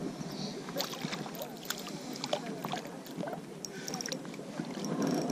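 A hooked fish thrashing at the water's surface on a lure close to the bank: an irregular run of small splashes and slaps.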